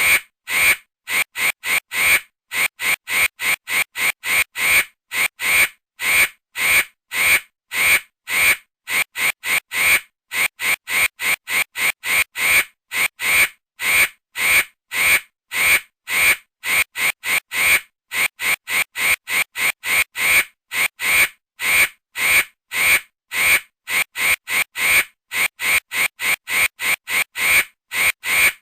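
Vultures calling: a continuous series of short, even calls, about two to three a second.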